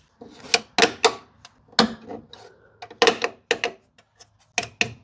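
Sharp, irregular clicks and clacks from hand tools and metal hardware being handled, coming in small clusters, about a dozen in all.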